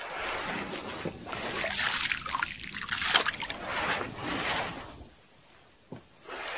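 Hands kneading and squeezing wet grain groundbait in a plastic bucket, a moist squelching and rustling of packed grain in irregular bursts that drop away for about a second near the end.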